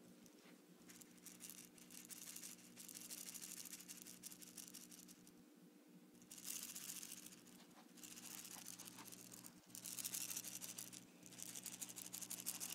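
Faint handling noise: bursts of rustling and scraping as a hand-held container and the phone are moved about, over a steady low hum.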